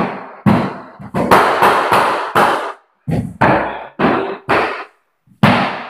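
Hardwood flooring boards being handled and set down, knocking and clacking against each other and the floor in about a dozen sharp wooden knocks, each ringing out briefly, with short pauses between bunches.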